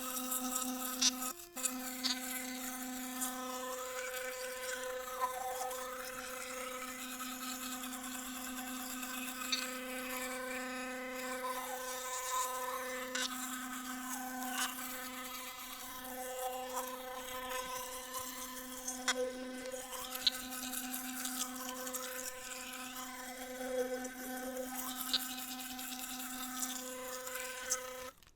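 Electric toothbrush buzzing steadily while brushing teeth, with wavering scrubbing noises and small clicks as the head moves; the motor cuts off near the end.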